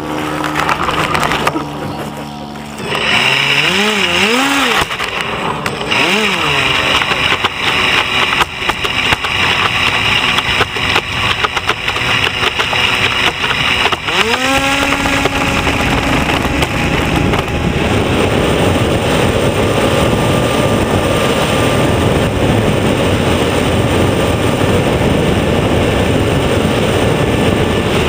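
RC float plane's motor and propeller heard from on board, briefly revved up and down while taxiing on the water, then run up about halfway through. From a little past the middle it holds a steady, loud full-throttle sound with water rushing against the floats as the plane takes off.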